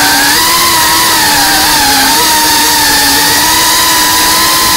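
FPV quadcopter's electric motors and propellers whining steadily, the pitch wavering slightly with throttle and dipping about two seconds in before holding.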